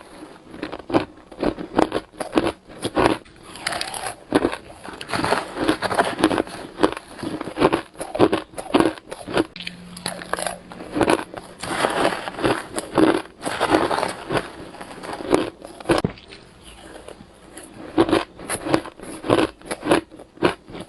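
Close-miked biting of crunchy crushed ice, with many sharp crunches coming a few a second in uneven clusters.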